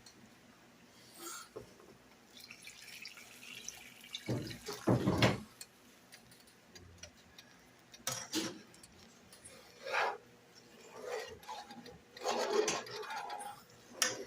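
A utensil scraping and stirring thickening flour gravy in a skillet, in irregular strokes with one louder, longer stroke about five seconds in.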